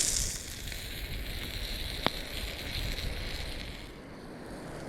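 Steak sizzling on a hot rock in a campfire, with a single sharp pop about two seconds in. Wind rumbles on the microphone underneath.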